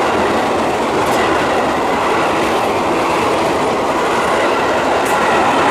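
Tobu 10030-series electric commuter train passing close by: a steady, loud rush of wheels on rail, with a couple of faint clicks from the wheels over the track.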